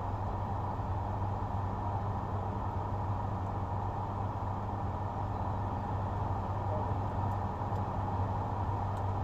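Steady low hum of a parked car running, heard from inside the closed cabin.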